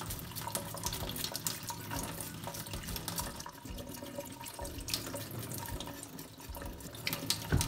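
Kitchen tap running into a stainless steel sink while a knife blade scrapes scales off a wet salmon fillet, with a steady water splash and many quick, sharp scratching strokes.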